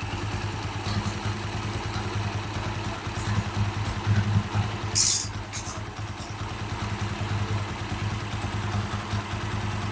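Tuned Suzuki Axelo single-cylinder four-stroke engine idling through its stock exhaust, very smooth and even. The steady idle shows none of the hanging or surging idle that tuned builds with aftermarket cams tend to have. A brief sharp hiss comes about halfway through.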